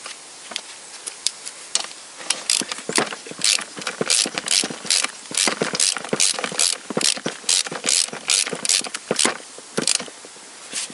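Ratchet wrench clicking as it tightens a chainsaw spark plug: sharp clicks in quick, irregular runs as the handle is swung back and forth, stopping shortly before the end.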